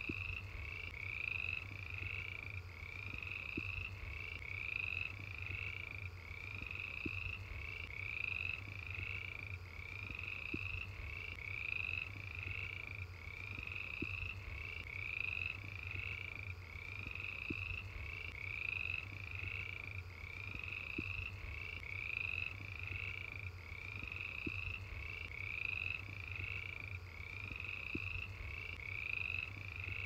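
Frogs and crickets calling at night: one call repeated steadily, each rising slightly in pitch, over a low steady rumble.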